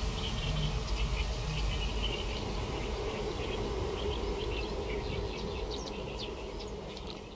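Outdoor ambience: many small chirps and ticks from birds and insects over a steady low rumble, beginning to fade toward the end.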